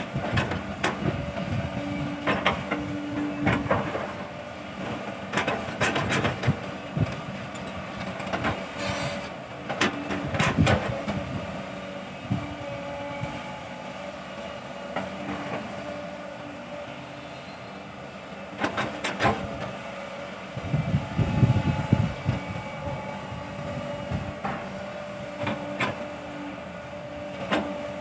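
Sumitomo hydraulic excavator working: its diesel engine and hydraulics run steadily under changing load, with frequent clanks and knocks from the bucket and boom as it digs into and scrapes the earth bank. The engine rumbles more heavily about three-quarters of the way through.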